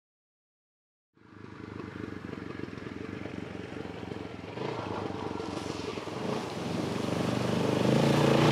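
Motorcycle engine running as the bike approaches, starting about a second in and growing steadily louder, with water splashing near the end as it rides through a creek crossing.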